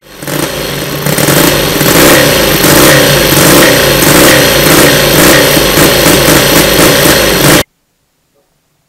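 Miniature V-twin model engine running, a fast, even beat that grows louder about a second in, then cuts off abruptly near the end.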